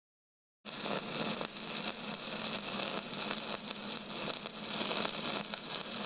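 Electric welding arc: a steady crackling hiss over a constant low buzz, starting abruptly under a second in.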